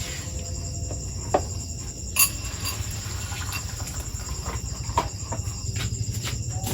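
Insects chirring steadily at a high pitch over a low rumble, with a few short knocks, the loudest about two seconds in.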